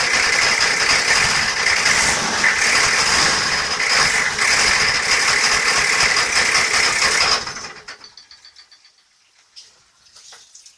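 Volvo Penta AQAD40B marine diesel idling steadily with the mechanical noise the owner is asking about. About seven and a half seconds in it stops and dies away within a second, leaving only a few faint clicks.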